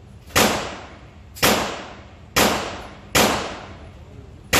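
Five pistol shots fired one at a time in slow aimed succession, roughly a second apart, each a sharp crack followed by a ringing echo that dies away.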